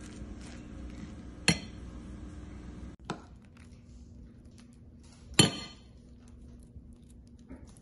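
A metal spoon clinking against a ceramic plate while stirring and scooping a soft mixture: sharp ringing clinks about a second and a half in and, loudest, about five seconds in, with a softer one near three seconds.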